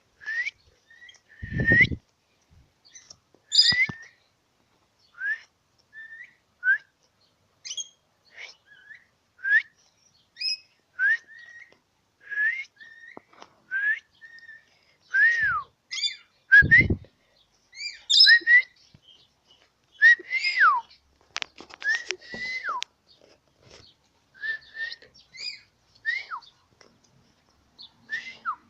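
A person whistling short chirpy notes over and over, each sliding up and then down, to call a pet rabbit. Two brief low thumps break in, one about two seconds in and one past the middle.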